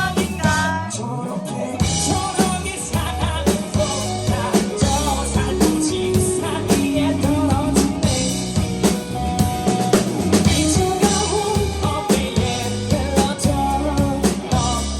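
Live band playing a song with a drum kit beat and a singer's voice; the singing is clearest at the start and again near the end, with a mostly instrumental stretch between.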